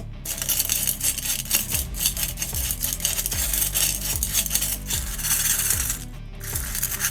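Rapid, dense metallic scraping and clicking, as of a tool working on a metal part, pausing briefly about six seconds in, with background music underneath.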